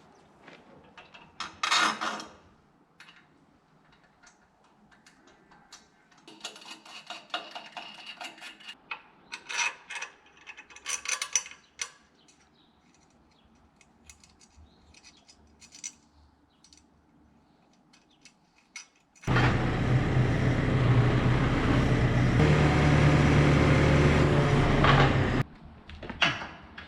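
Scattered knocks and clatters of metal handling, then the sawmill's small petrol engine running loudly for about six seconds, starting and stopping abruptly.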